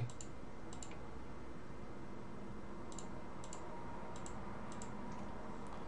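Computer mouse clicking: about half a dozen faint, separate clicks, most of them close together in the second half, over a steady low background hum.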